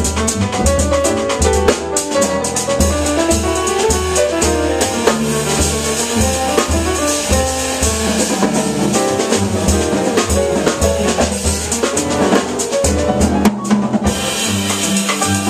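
Live jazz piano trio playing: grand piano, upright double bass and drum kit, with busy cymbal work over walking bass notes.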